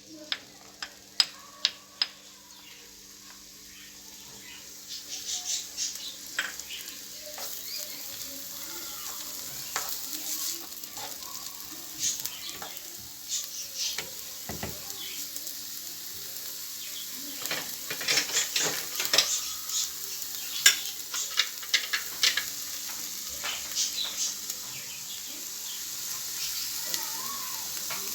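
Chopped onion and garlic frying in oil in a pan, sizzling and crackling; the sizzle builds up after a few seconds. A few sharp taps come in the first two seconds.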